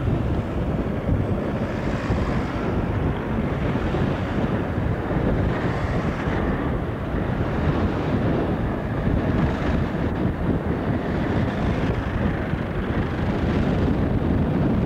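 Wind buffeting the camcorder microphone in a steady low rumble, with cars driving past on the road.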